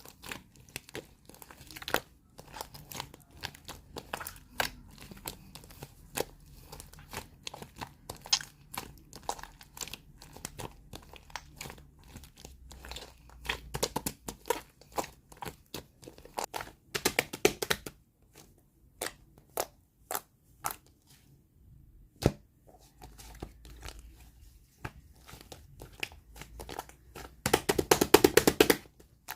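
Clear slime being squeezed and poked by hand, giving a steady scatter of sharp clicks and pops. Near the end it is worked quickly, with a dense run of loud pops.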